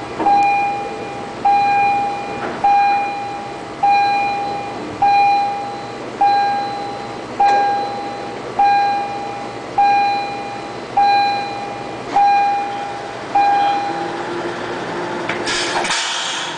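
Warning beeper sounding one long beep about every 1.2 seconds while a turntable rotates a Panama Canal towing locomotive (mule). The beeps stop about 14 seconds in, leaving a steady motor hum, and a short hiss comes just before the end.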